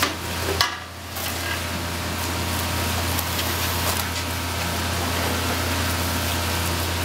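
Gloved hands squeezing and churning a grainy mash of salted rice koji and cooked soybeans in a wooden tub: a steady rustling, squishing noise over a constant low hum.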